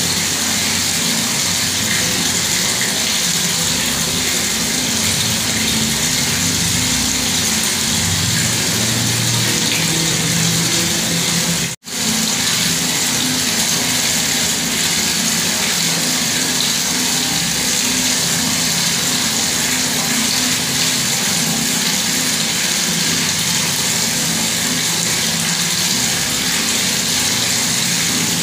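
Bathroom tap running steadily with a full, even stream of water. The sound cuts out for a split second about twelve seconds in, then resumes unchanged.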